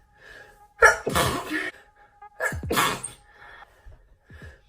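A woman sneezing twice, the second sneeze about a second and a half after the first, each starting sharply.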